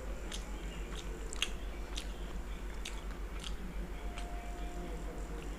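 Close-up chewing of chicken momos: soft, irregular wet mouth clicks, about one or two a second, over a steady low hum.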